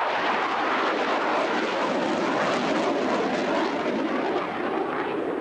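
Panavia Tornado jet's engines making a loud, steady rushing noise as it flies a tight, high-g turn overhead, easing slightly near the end.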